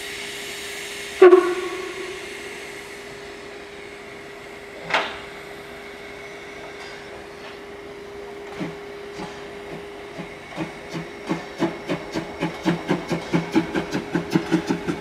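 Narrow-gauge (750 mm) steam locomotive 99 1749-3 hissing steam, with a loud sharp blast about a second in and a shorter one about five seconds in. From about eight seconds it pulls away, its exhaust chuffs quickening to about four a second.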